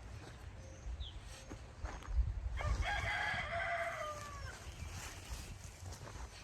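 A rooster crows once, one call of about two seconds that drops slightly in pitch at its end, over a low rumble.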